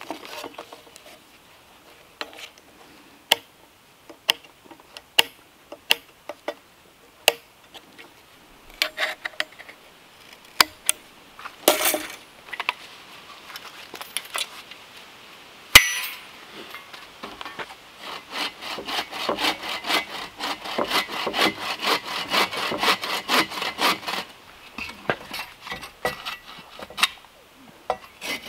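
Hand bow saw cutting through a wooden post with fast back-and-forth strokes for about six seconds in the second half, starting again at the very end. Before that come scattered sharp clicks and taps as the saw blade is handled on the bench, and one loud snap about halfway through.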